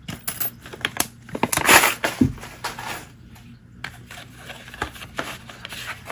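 A plastic zip-top bag of small metal charms crinkling and clinking as a hand rummages through it, busiest in the first three seconds, then a few light taps and rustles.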